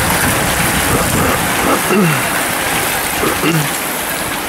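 A dense pack of racing bicycles passing close by: a steady hiss of tyres on tarmac and freewheels, with a few brief voices, easing slightly as the pack thins out.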